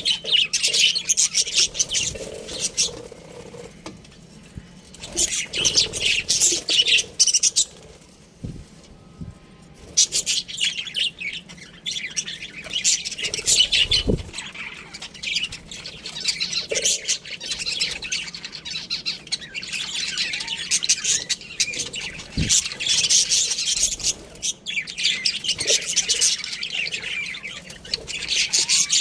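A flock of budgies chattering and chirping, fast high-pitched warbles and squawks coming in bouts of a few seconds with brief lulls between them.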